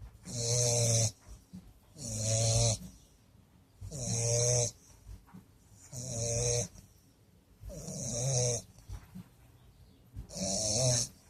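Bulldog asleep and snoring, one snore about every two seconds, six in all.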